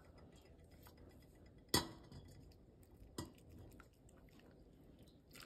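A stainless-steel pot clinking against a small mesh strainer and bowl as water is poured from it through the strainer: two sharp metallic clinks, the first about two seconds in and a weaker one about a second and a half later, over a faint trickle.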